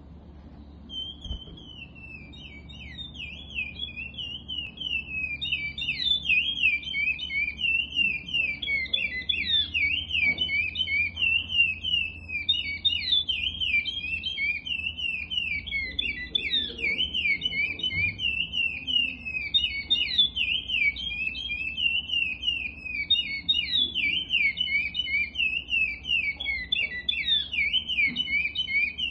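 A male chestnut-bellied seed-finch (curió) sings its fast, unbroken whistled song in the Paracambi clássico dialect. The song starts about a second in and grows louder over the first few seconds.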